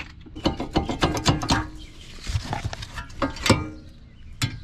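Metal clicks and knocks as a rusty front brake caliper is worked loose and lifted off the rotor after its bolts have been removed.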